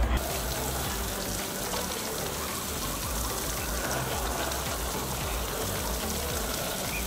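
Outdoor shower running: a steady hiss of water spraying from a post-mounted shower head and splashing onto the people standing under it and the ground.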